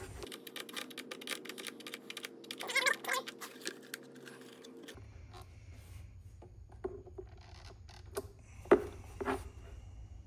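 Rapid run of small metallic clicks for about four and a half seconds, from hand work fastening a push-button switch into a golf cart dash, then a few scattered knocks and one sharp click near the end.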